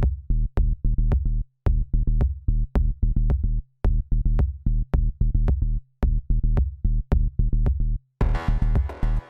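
Electronic background music with a heavy drum-machine beat and deep bass; fuller synth parts come in near the end.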